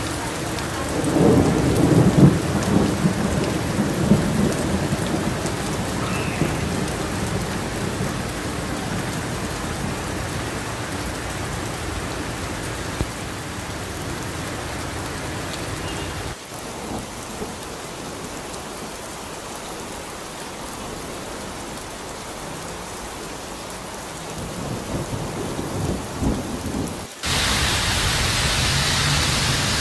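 Heavy rain pouring onto wet streets, with a low rumble of thunder starting about a second in. The sound drops abruptly about halfway through, then jumps to a louder, hissier downpour near the end.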